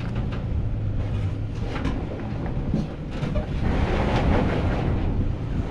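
A second-generation Toyota Tacoma's engine working as the truck crawls up a slickrock ledge, heavily masked by wind buffeting the microphone. The noise grows louder for a second or so about four seconds in.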